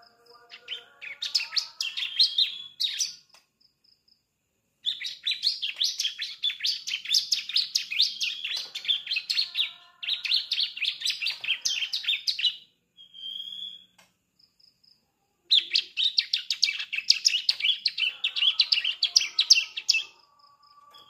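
Young bar-winged prinia (ciblek) practising its song: rapid chattering trills of sharp high notes in three long bursts, with short pauses between. This is the immature song of a juvenile just starting to sing.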